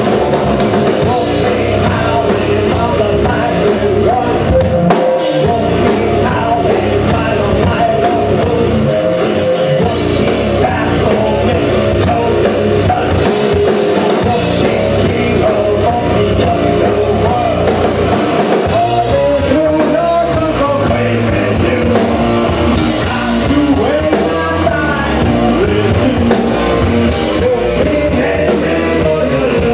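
Live rock band playing loud: electric guitar and drum kit with steady cymbal strikes, and a man singing over them.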